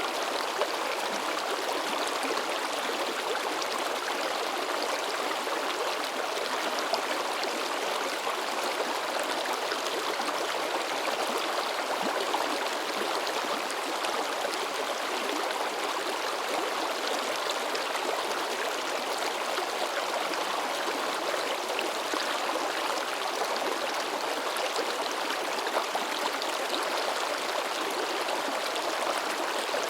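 Shallow river babbling and splashing over rocks: a steady, unbroken rush of moving water.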